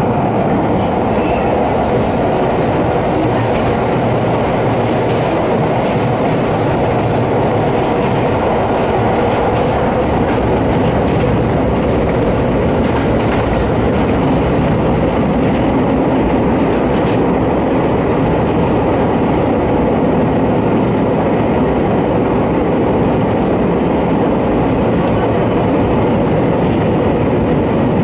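On-board running noise of a Kobe Electric Railway Arima Line electric train climbing a steep mountain grade: traction motors working under load and wheels running on the rails, a steady, loud, even noise.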